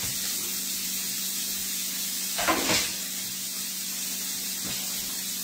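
Steady sizzling hiss of food cooking, under a faint low steady hum. A brief voice sound breaks in about two and a half seconds in.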